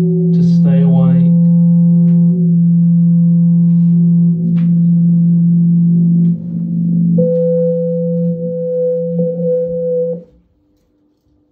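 Experimental music drone: a steady held low tone with overtones, with a short voice phrase over it at the start. A higher held tone joins about seven seconds in, and the drone cuts off abruptly about ten seconds in, leaving only a faint thin hum.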